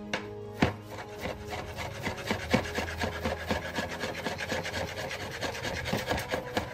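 Kitchen knife chopping a peeled banana into slices on a plastic cutting board: quick repeated taps of the blade striking the board, about four a second.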